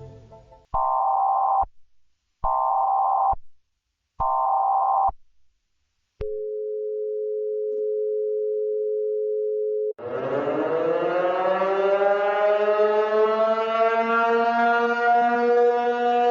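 Electronic telephone-style tones: three beeps of about a second each, then a steady two-note dial tone for a few seconds. About ten seconds in, a buzzy synthesized tone starts and slowly rises in pitch.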